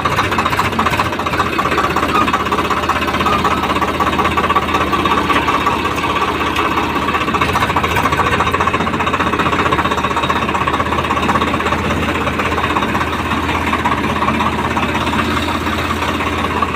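Swaraj 855 tractor's diesel engine running steadily, a loud even clatter heard through its old silencer, the one that is about to be replaced.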